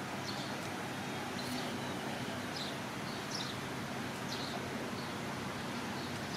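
Faint, short high chirps of small birds scattered over a steady background hiss, a few each second at most.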